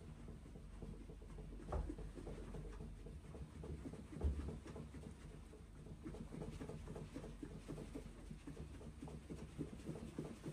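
Faint stomach gurgling as hands press and work the upper abdomen through a sweatshirt, mixed with soft rubbing of fabric and a couple of dull low thumps. The gurgle is taken as the sign that a sluggish stomach has started moving again.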